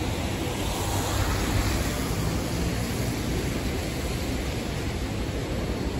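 Steady city street noise: a low traffic rumble and hiss, with no distinct events standing out.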